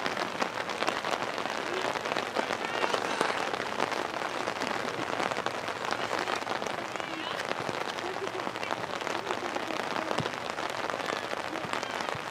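Steady rain with a dense patter of drops throughout, and faint distant shouts now and then.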